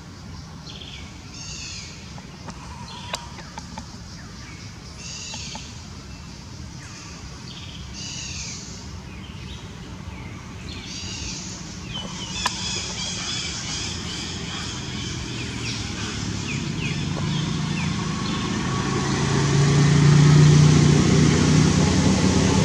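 A bird calls over and over, a short call about every three seconds. In the second half a motor vehicle's engine hum grows gradually louder and becomes the loudest sound near the end, with a dense high chirring above it.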